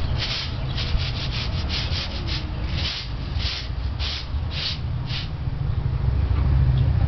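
Broom bristles sweeping concrete in repeated scraping strokes, quick and short at first, then slower, longer strokes about two a second that stop a little after five seconds, over a steady low rumble.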